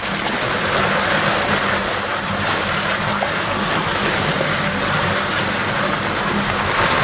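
A car tyre dragged by a Belgian draft horse over wet asphalt, making a steady rough scraping noise.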